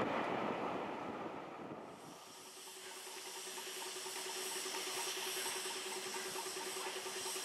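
A passing train running away into the distance, fading over the first two seconds. Then the steady hiss of steam from LNER A4 Pacific 4464 Bittern standing still, with a faint rapid pulsing about four or five times a second.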